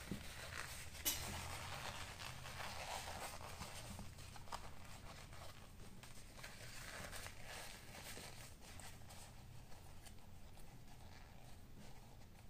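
Faint rustling and rubbing of a small leather pouch and its cloth lining as it is handled and turned inside out, with small ticks throughout and a sharper tap about a second in.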